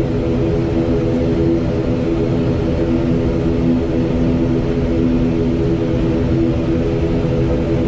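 ATR 72-600's twin turboprop engines and propellers running steadily as the aircraft taxis on the ground, heard from the cockpit as an even drone with several steady humming tones over a low rumble.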